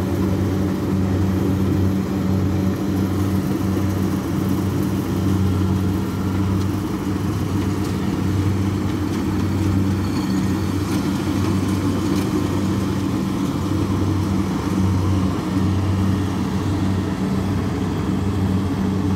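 Kubota DC60 combine harvester running steadily while cutting ripe rice. Its Kubota V2403 four-cylinder diesel gives a low, even drone with a pulsing low hum, over the clatter of the harvesting works.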